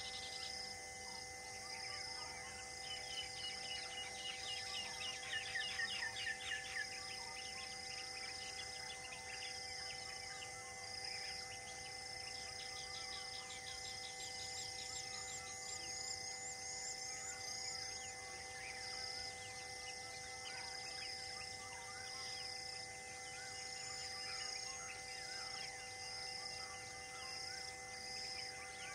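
Outdoor bird and insect chorus. A high chirp repeats about once a second throughout, and rapid bird trills come a few seconds in, over a few steady held tones.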